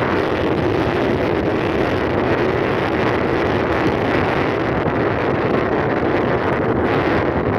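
Loud, steady wind noise buffeting the microphone, a continuous rushing rumble with no breaks.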